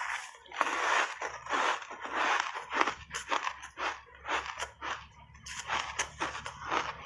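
Close-miked crunching of a mouthful of matcha-powder-coated ice being chewed, in a quick, irregular run of sharp crunches.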